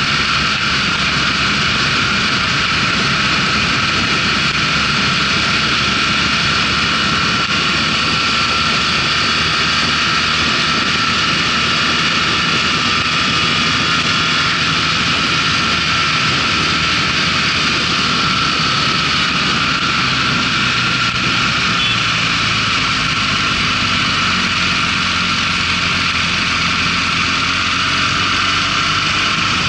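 Motorcycle riding at road speed: the engine runs steadily under a loud, even wind rush. Near the end the engine note drops as the bike slows for a bend.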